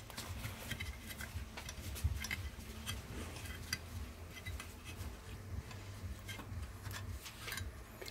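Irregular small clicks and light metallic clinks as the black metal parts of an EDgun Matador R5M air rifle's carrier assembly are handled and fitted together by hand, over a steady low hum.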